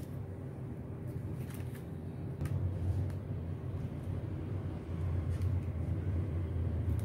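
Steady low background rumble that grows a little louder in the second half, with a few faint clicks as the phone is handled.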